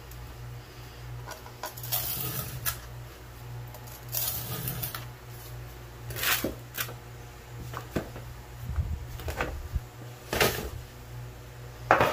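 Oil-bonded casting sand (Petrobond) being scraped off a sand-casting flask and pushed around a metal sheet tray, with scraping and crumbling broken by about seven sharp knocks of the flask and scraper against the tray.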